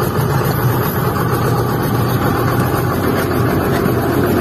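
Sumitomo crawler excavator's diesel engine idling steadily.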